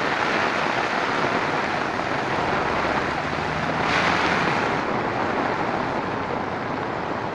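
Heavy tropical rain together with rushing floodwater from an overflowing creek, a steady loud rush of noise that swells briefly about four seconds in.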